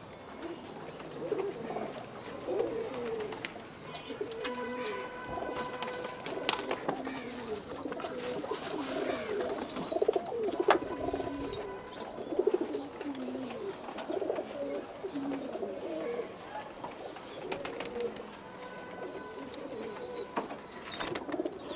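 A flock of domestic pigeons cooing over one another throughout. A run of short, high chirps sounds above them from about two seconds in until past the middle, with a few scattered sharp taps.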